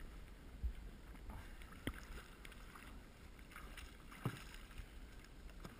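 Quiet water lapping around a stationary jet ski and an inflatable ring, with a low steady rumble and a few small plops, one about four seconds in with a quick falling pitch.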